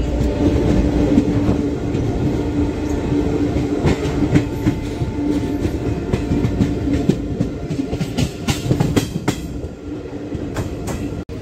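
Passenger train running on the rails, a steady rumble and hum with the wheels clicking over rail joints, the clicks thickest in the later part. The sound eases off toward the end.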